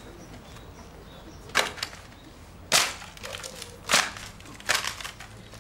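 Wooden crates clattering as they are dropped and stacked onto a pile: four loud, sharp wooden knocks about a second apart, some followed by a quick smaller rattle.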